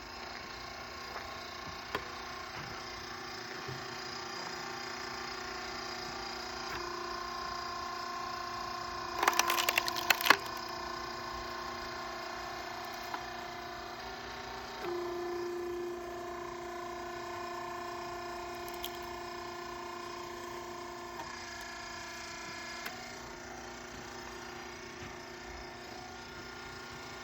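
Log splitter running with a steady hum that steps in pitch a few times as it works. About nine seconds in, a log cracks and splinters apart in a quick cluster of loud snaps, and a few single knocks sound elsewhere.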